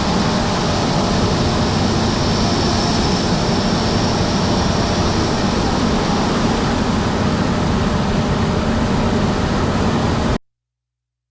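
Heavy farm machinery running steadily, a dense engine-and-machine noise with a low hum, which cuts off suddenly near the end.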